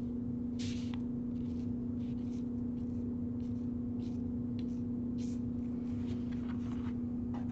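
Faint soft scrapes of a steel palette knife spreading thick oil paint across a paper card, a handful of short strokes, over a steady low hum.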